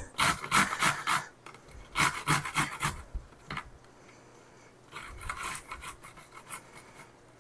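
Zucchini being grated on a metal box grater: quick rasping strokes in three runs with short pauses between.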